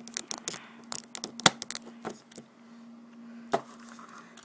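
Hard plastic action figure and its parts being handled: a quick run of small clicks and knocks in the first couple of seconds, the sharpest about a second and a half in, and one more knock near the end, over a faint steady hum.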